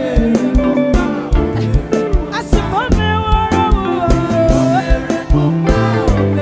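Live gospel praise music with a steady drum beat, bass and chords, and a singing voice over it that slides upward about two and a half seconds in.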